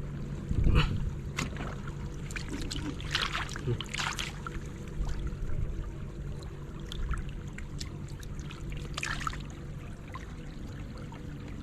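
Shallow muddy floodwater splashing and sloshing, with several short splashes against a steady low hum.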